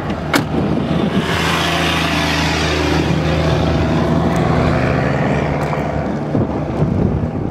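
A motor vehicle's engine running steadily, with road noise that swells after about a second and fades near the end. A sharp click sounds just before the noise builds.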